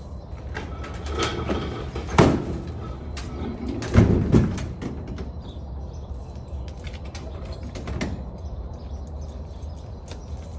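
Enclosed cargo trailer's rear ramp door being raised and shut: a sharp metal knock about two seconds in, a heavier bang about four seconds in as the door closes, and a lighter clank near eight seconds. A low steady rumble runs underneath.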